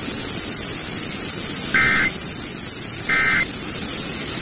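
Emergency Alert System end-of-message signal on a NOAA Weather Radio broadcast: short two-tone digital data bursts about a second and a half apart, over steady radio static, marking the end of a tornado warning. Two bursts sound, and a third starts just at the end.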